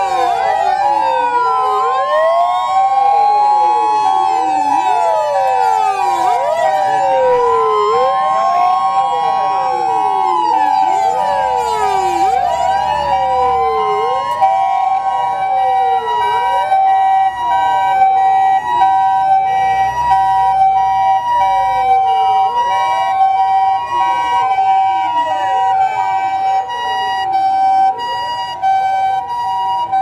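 Japanese fire engine and ambulance sirens on an emergency run: several wail sirens rising and falling over and over, overlapping one another, over a continuous two-tone hi-lo ambulance siren. The low sound of heavy vehicle engines passing comes in twice.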